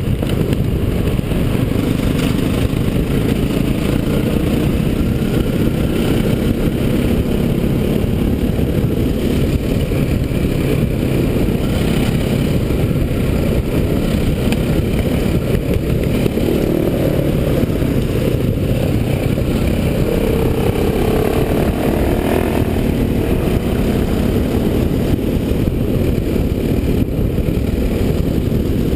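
Enduro dirt bike engine running while being ridden along a rough dirt track, heard from a helmet-mounted camera over a dense rumble. The engine pitch rises and falls with the throttle, climbing in a few revs about two-thirds of the way through.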